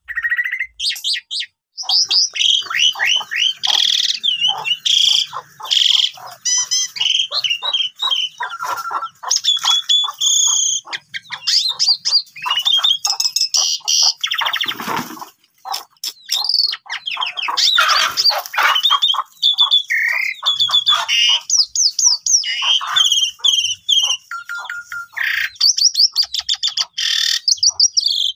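Pied starling (jalak suren) singing a long, varied song of fast chattering notes and quick rising and falling whistles, broken by a couple of harsh, grating calls near the middle.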